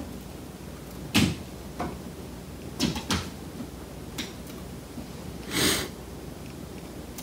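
A handful of light knocks and taps, the sharpest about a second in, then a short hissing rush a little before the end.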